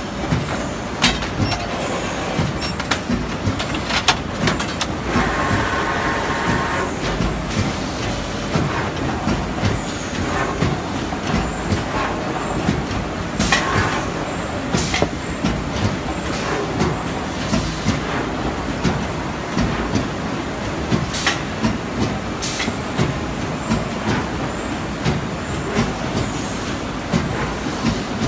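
Traveling-head hydraulic die-cutting press running: steady machine noise broken by sharp knocks every few seconds at irregular intervals as the cutting head works through the sheet.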